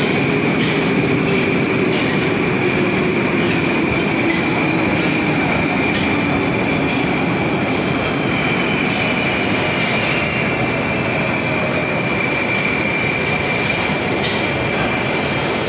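Moscow Metro train running through the station, a steady rumble with a high whine that slowly falls in pitch.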